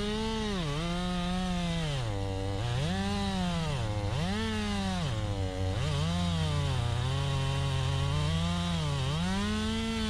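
Husqvarna 550 XP two-stroke chainsaw cutting a length off a log at full throttle, its engine pitch repeatedly sagging as the chain bites into the wood and picking up again.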